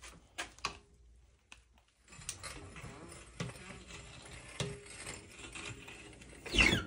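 Floor jack being worked under the side of a lowered car: scattered metallic clicks and light knocks from the jack and its handle, with a louder short sound near the end.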